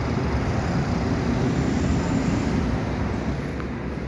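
Steady rumble of city street traffic, cars and buses, heard from a high window, with an engine hum rising briefly around the middle.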